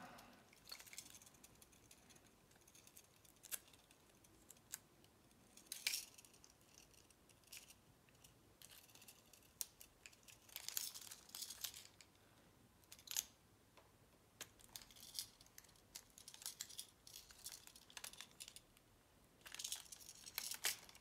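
Faint rustling and scattered light clicks of fingers smoothing and pressing clear adhesive protective film onto a hard plastic swimbait lure, in short bursts with quiet gaps between.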